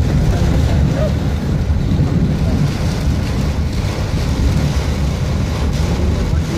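Heavy rain on a moving vehicle, heard from inside the cabin: a steady low rumble of the vehicle and tyres on the wet road under the even hiss of the downpour.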